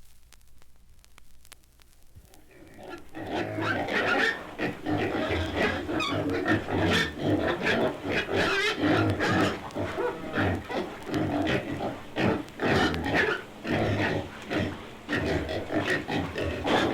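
Many animal calls overlapping in a dense, irregular stream. They start faintly and become loud about three seconds in.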